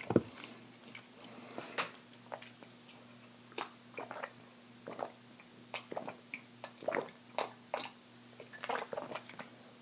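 A person chewing saucy chicken wings close to the microphone, with scattered short wet smacks and clicks at irregular intervals.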